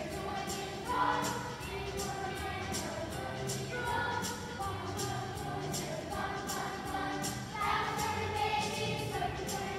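Children's choir singing over an accompaniment with a steady beat.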